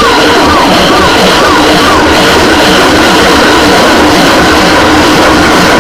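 Loud music. A short rise-and-fall tone repeats about twice a second over the first two seconds.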